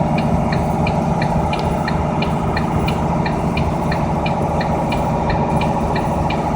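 Car engine and road noise heard from inside the cabin, a steady low hum, with a light, regular ticking about three times a second throughout.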